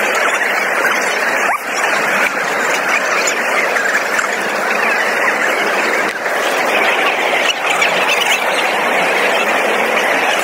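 Steady hubbub of a large crowd of people talking and calling out as they walk, many voices blended together.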